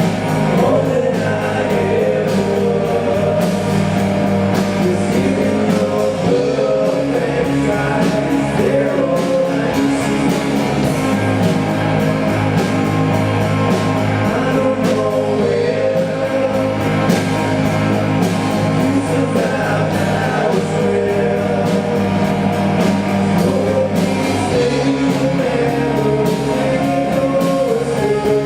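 A live band playing a rock song: a singer over guitar and a bass line, with a steady beat of drum hits.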